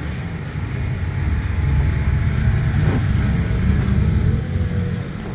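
Wind buffeting the camera microphone, a loud, unsteady low rumble.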